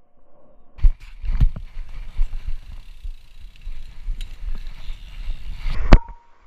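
BMX bike rolling on asphalt: steady tyre and riding noise, with irregular low thumps underneath that the rider takes for his own heartbeat picked up by the chest-level GoPro. About six seconds in comes one loud sharp clank with a brief ring.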